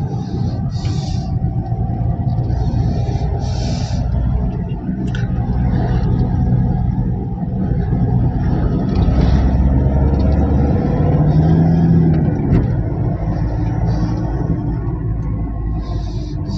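Steady engine and tyre rumble of a moving car, heard from inside its cabin, with short patches of higher hiss now and then.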